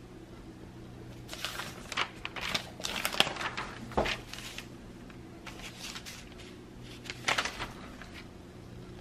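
Newspaper coupon inserts being leafed through: paper rustling and crinkling in a cluster of bursts from about one to five seconds in, then twice more, more briefly, over a faint steady hum.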